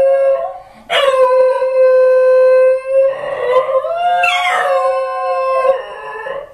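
Two dogs howling together in long, drawn-out howls. One howl trails off just after the start; a new one begins about a second in and holds a steady pitch, then a second, higher voice joins with rising howls about four seconds in.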